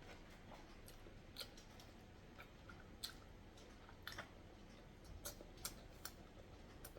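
Faint chewing of boiled eggs: soft, irregular wet mouth clicks and smacks, a few of them sharper, over a low background hiss.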